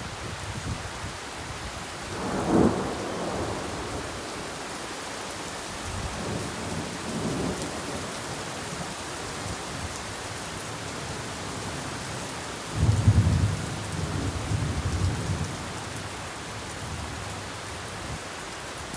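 Steady rain falling, with thunder: a short burst about two and a half seconds in and a longer, louder low rumble from about thirteen to fifteen seconds.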